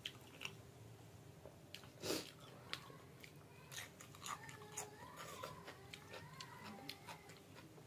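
Person eating close to the microphone: bites and chewing with scattered crunchy clicks, one louder bite about two seconds in.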